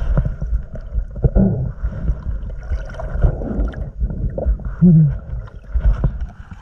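Water sloshing and gurgling close to the microphone, with a low rumble and irregular knocks.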